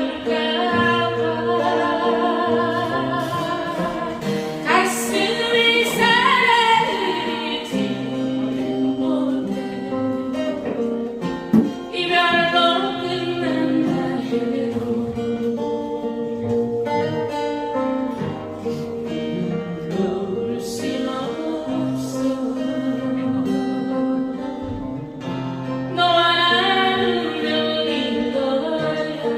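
A voice singing a song over instrumental accompaniment with guitar, the notes held and wavering, with an upward vocal slide about five seconds in. A brief sharp noise cuts through once, near the middle.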